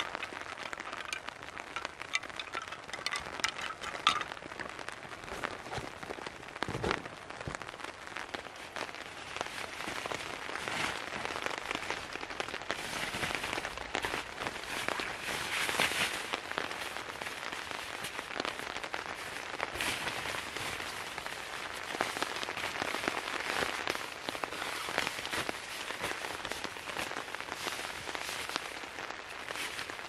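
Bamboo wind chimes knocking in the first few seconds, then a dense crackle of many small ticks that swells and eases twice.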